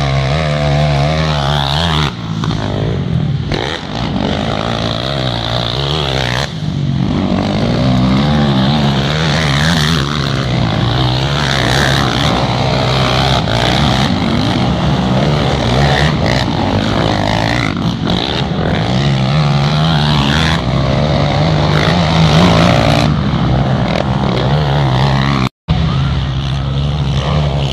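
Sport quad (ATV) engines racing on a dirt track, revving up and down as the riders accelerate and ease off through the corners. The sound cuts out for a moment near the end.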